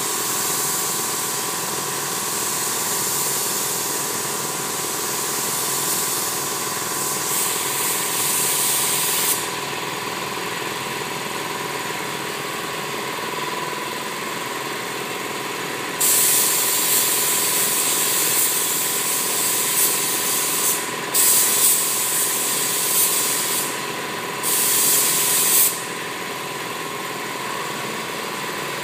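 Gravity-feed paint spray gun hissing as it sprays a car body, in bursts of a few seconds with the trigger released in between. Under it runs a steady machine hum with a constant tone.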